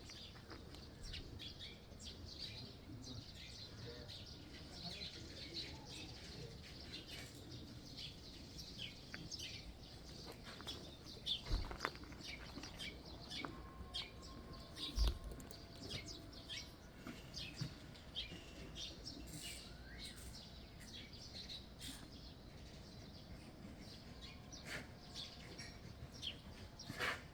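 Small birds chirping in short, repeated calls, faint, with two dull thumps near the middle.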